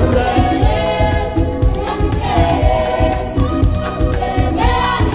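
Background music: a choir singing over a steady beat.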